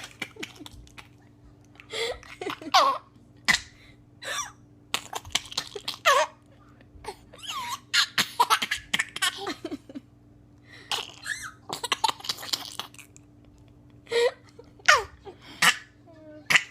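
A young child laughing in short, irregular bouts, broken by sharp hiccups.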